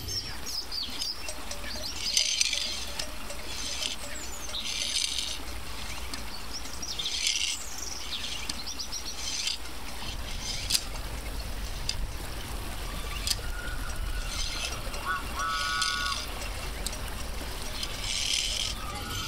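Short bursts of high chirping, some sweeping down in pitch, come every one to two seconds over a steady low hum. About fifteen seconds in, two short pitched tones sound.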